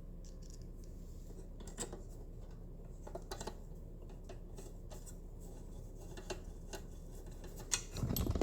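Scattered light clicks and rubbing from a motorcycle headlight and its mounting hardware being handled and fitted, over a steady low hum, with a louder bump near the end.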